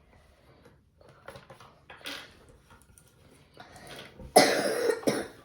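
Faint clicks of Lego bricks being handled, then a loud cough about four and a half seconds in.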